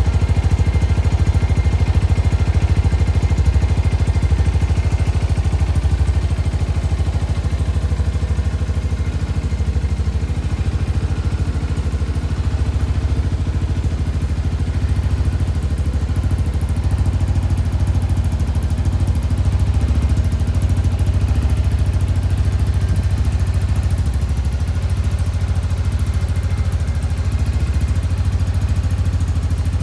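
Shelby Renz 200, a Chinese-built Ninja-replica motorcycle, with its engine running steadily at idle, with no revving.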